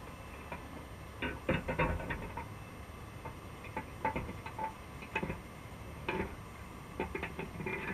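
Irregular clusters of sharp clicks and taps underwater inside a wire crab pot, some with a short metallic ring, at a few ticks a second within each cluster.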